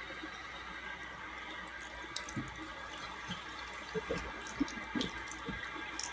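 Water running from a tap into a sink in a steady stream, with small splashes and drips throughout.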